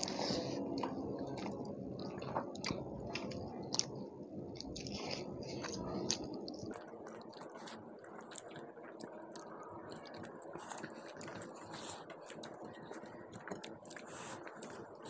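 Close-up chewing of two people eating rice and curry with their hands, with many small wet clicks and soft squelches of fingers mixing rice and curry on the plate.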